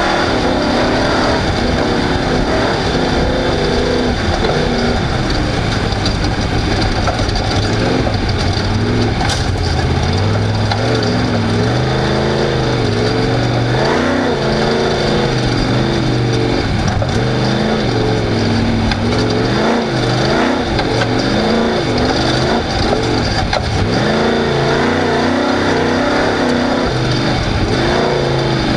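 Off-road race car's engine running hard, its pitch rising and falling over and over as the throttle is worked, over a constant noisy rush.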